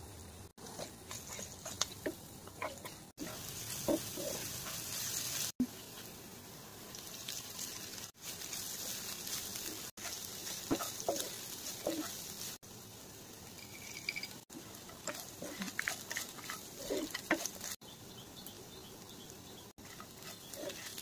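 Kanda poha frying and being stirred in a nonstick pan: a steady sizzle with short scrapes and taps of a steel spoon and a wooden spatula against the pan. The sound drops out briefly every two to three seconds.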